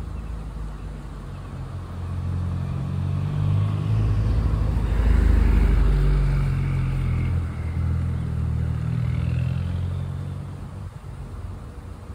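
A motor vehicle driving past: its engine rumble grows louder to a peak about five seconds in, then fades away.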